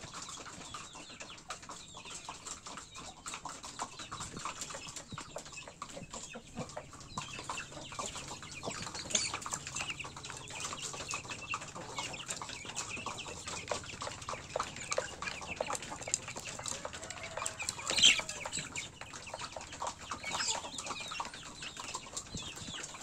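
Chickens clucking and calling in a coop, over many small clicks of pecking and scratching. One louder short squawk about three quarters of the way through.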